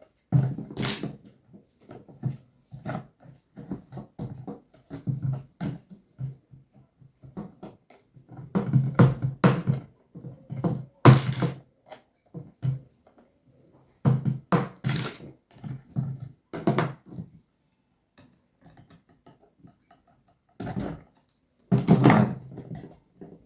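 Irregular knocks, taps and clicks of parts being handled and fitted together by hand, with short pauses between them.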